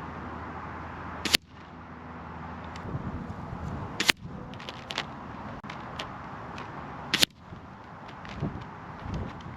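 Benjamin Armada .22 PCP air rifle firing three shots about three seconds apart, each a single sharp crack.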